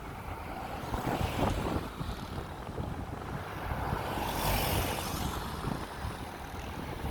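Jet engine noise of a landing Airbus A330-300 with Rolls-Royce Trent 700 engines, heard through wind buffeting the microphone. The rumble swells and a hiss rises about four seconds in.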